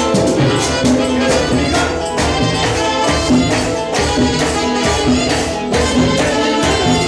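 Live band playing a song with a steady beat: electric bass, keyboards and singers on microphones.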